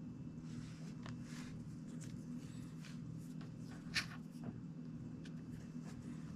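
Plastic pry tool scraping and working around the edge of a tablet's screen, faint scratching with a few small clicks and one sharp click about four seconds in, over a steady low hum.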